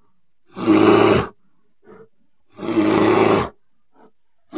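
Loud, deep animal roars repeated about every two seconds, each a little under a second long, with faint short growls between them.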